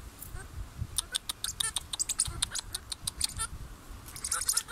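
Squirrel monkeys squeaking and chirping: a quick run of short, sharp high-pitched chirps through the middle, then softer peeps near the end.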